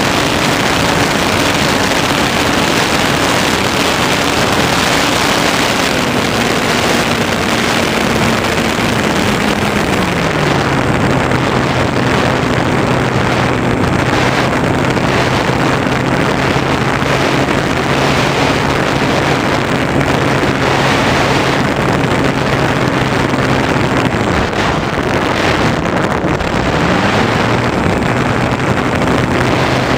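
Airflow rushing over the onboard camera of an Easy Glider Pro RC motor glider in flight, with the hum of its electric motor and propeller underneath. The motor tone drops in two steps in the first third as the throttle is eased back, holds low, then climbs back up near the end.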